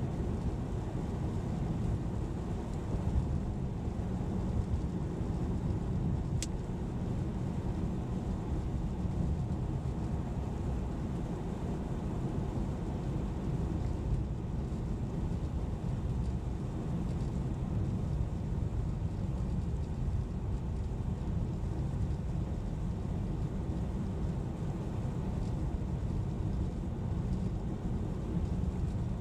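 A car being driven, giving a steady low road and engine noise, with a single sharp click about six seconds in.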